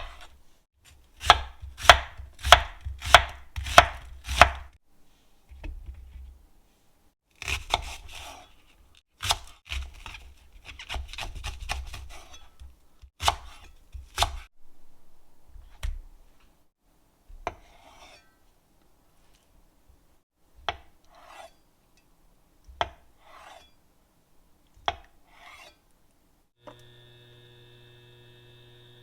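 A kitchen knife chopping food on a cutting board: a quick run of six even strokes at first, then scattered single cuts with some scraping of the board. Near the end a steady electrical hum starts.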